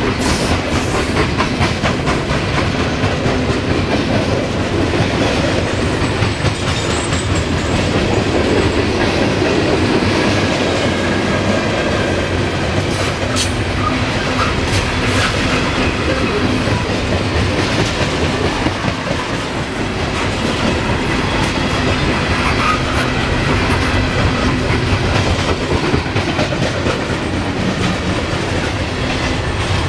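Norfolk Southern coal train's open-top hopper cars rolling past: a steady rumble of steel wheels on rail with clickety-clack over the rail joints.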